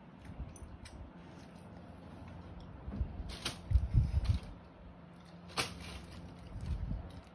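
A dog eating durian: scattered wet mouth clicks and smacks as it chews and licks its lips, with a cluster of low thuds about four seconds in and again near the end.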